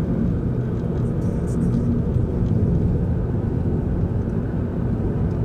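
Steady low rumble of a car on the move, with a faint even engine drone under it.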